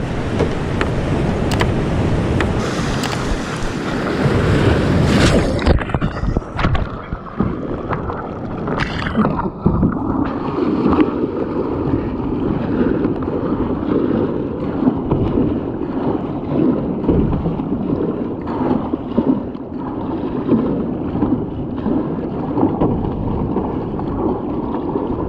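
Seawater rushing and splashing around a kayak on the open ocean, with wind buffeting the microphone. A bright hiss fills the first five seconds or so, then gives way to a lower, uneven sloshing with scattered small splashes.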